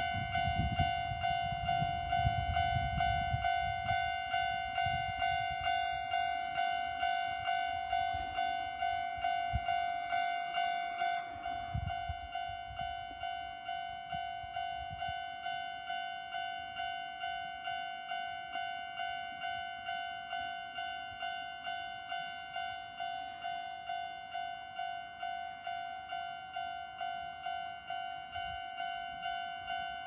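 Japanese railway level-crossing warning bell ringing in an even, repeating electronic ding, a little over one strike a second, warning that a train is approaching.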